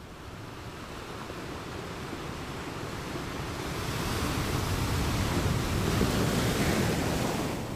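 Helicopter rotor and engine noise, a rough rushing sound that swells louder around the middle and eases near the end.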